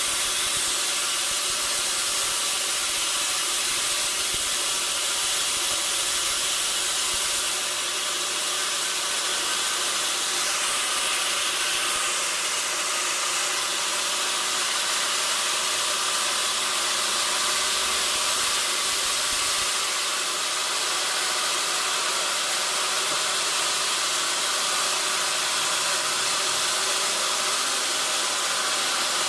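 Sawmill machinery running steadily, a continuous high-pitched mechanical noise without pause.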